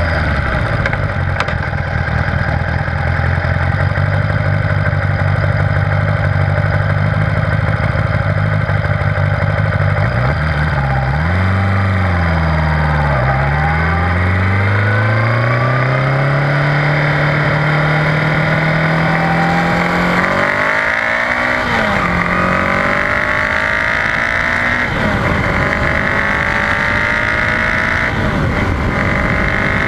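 1978 Honda GoldWing's flat-four engine running under way, with heavy wind and road noise. The engine note holds steady, dips as the bike slows about eleven to thirteen seconds in, climbs steadily as it accelerates, drops suddenly about twenty seconds in, and climbs again.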